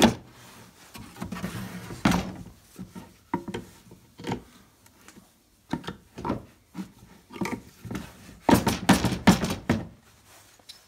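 Claw hammer knocking on a nail in a spruce bee box, a series of separate knocks followed by a quick run of several strikes near the end, as a nail that went in crooked is worked back out.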